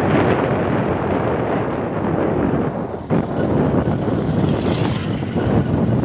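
Wind rushing over the microphone of a moving motorcycle, with the engine running underneath; the noise dips briefly about three seconds in.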